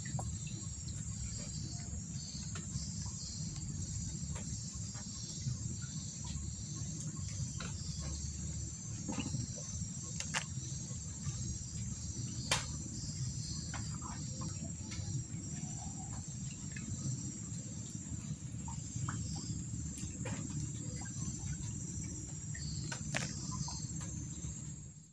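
Insects, crickets or similar, trilling in a steady high, pulsing drone over a low rumble, with scattered faint clicks and one sharper click about halfway through.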